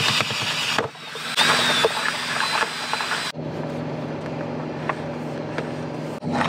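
Cordless drill boring a hole through the truck floor: one run of drilling, a short break about a second in, then a second run that cuts off abruptly a little past three seconds. After that, a low steady hum with a few light clicks.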